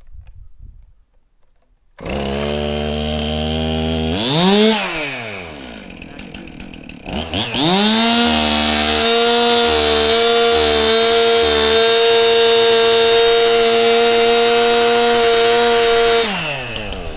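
Two-stroke chainsaw, flooded, firing with the throttle held wide open about two seconds in. It revs up and down briefly, then climbs again and runs steadily at high revs for about eight seconds before dropping back near the end.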